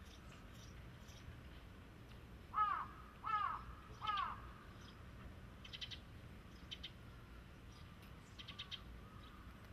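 A crow cawing three times in quick succession, each caw rising and falling in pitch. A few faint, short high ticks or chirps follow.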